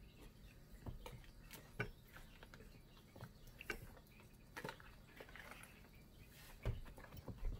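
Faint, irregular clicks and taps with light scraping from a metal palette knife working acrylic paint.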